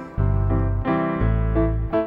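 Background music: a melody over held bass notes, with short breaks just after the start and near the end.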